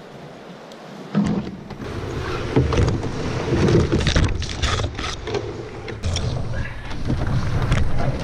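A canoe hull sliding and scraping down a brushy slope: branches and shrubs brush and crackle along its sides, with knocks and rattles as it lurches. The sound starts abruptly about a second in.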